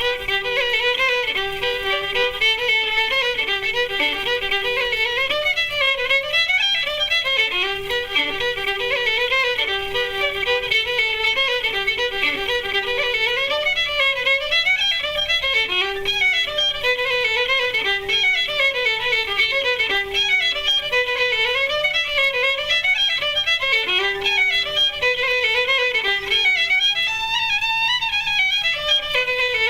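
Fiddle playing a lively Irish traditional tune solo: a continuous run of quick, ornamented notes that keeps returning to one held lower note.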